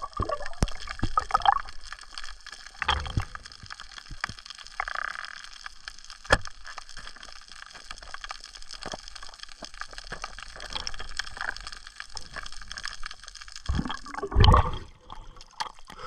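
Water as heard by a camera underwater: gurgling and sloshing over a steady hiss, with many scattered sharp clicks and crackles, and a louder gush of water near the end.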